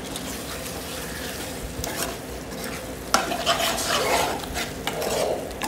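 A steel spoon stirring boiled corn kernels through a sizzling masala in a stainless steel pot. The frying sizzles steadily, and from about three seconds in the stirring gets louder, with irregular scrapes and sharp clicks of the spoon against the pot.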